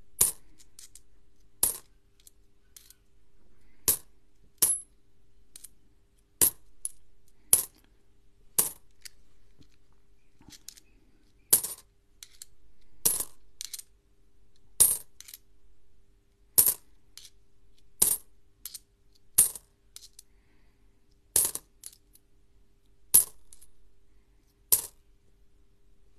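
Australian cupronickel coins clinking one at a time as each is taken off a hand-held stack and dropped onto a heap of loose coins. The clicks are sharp, about one every second and a half, with a short pause near the middle.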